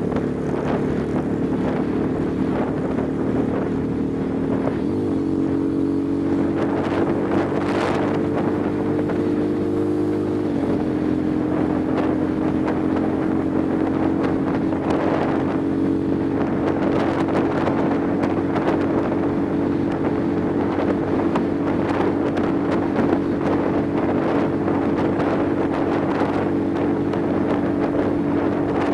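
Motorcycle engine running at cruising speed, with wind buffeting the microphone. The engine note steps up about five seconds in, then drops to a steady lower note about eleven seconds in.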